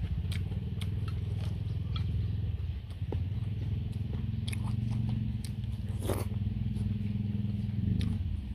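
A nearby engine running with a steady low drone that rises slightly and stops near the end, under sharp clicks and scrapes of a metal spoon on a metal tray and the wet mouth sounds of eating.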